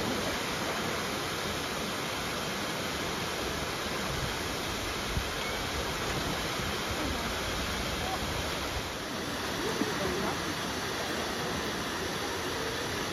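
Steady rush of water from a pool's spout jet arcing into the pool, with faint voices in the background.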